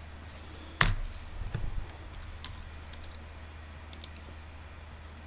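Computer keyboard and mouse clicks, a few scattered keystrokes with one sharp, louder click about a second in, over a steady low hum.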